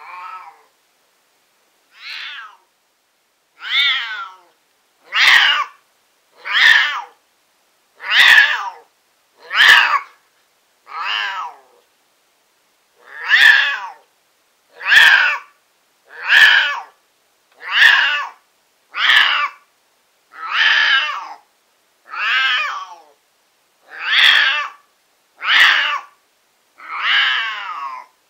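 Siamese cat yowling over and over, one loud drawn-out cry about every second and a half, with a short pause about twelve seconds in. The owner takes the shrieking for the cat being in heat.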